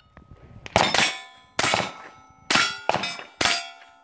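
Four rifle shots a little under a second apart, each with a steel target plate ringing as it is hit, the metallic ring dying away after each shot.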